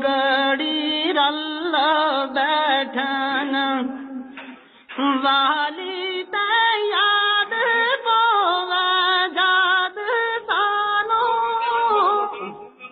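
A high voice singing a Hindko bait melody in long held, wavering notes, with a short break about four and a half seconds in.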